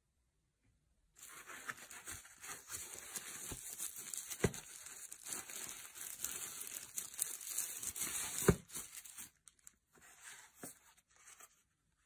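Thin plastic packaging sheet crinkling and rustling as it is handled and pulled out of a cardboard box, with a couple of sharper snaps. It starts about a second in, dies down about nine seconds in, and a few fainter rustles follow.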